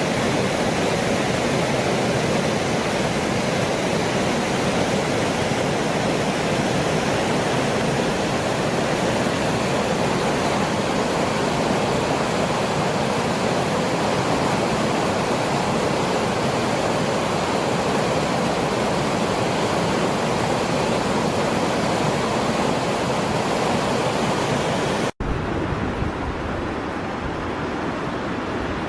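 Rushing water, a steady loud rush of noise. About 25 seconds in there is a sudden cut, after which the rush is duller, with more low rumble.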